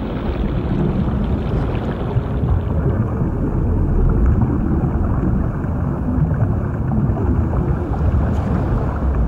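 Steady low underwater rumble, heaviest in the bass, with no distinct tones or knocks.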